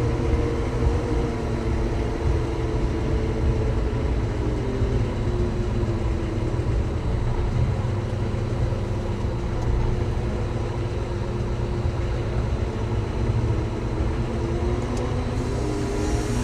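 Telehandler's diesel engine running steadily, its pitch wavering slightly as the revs shift.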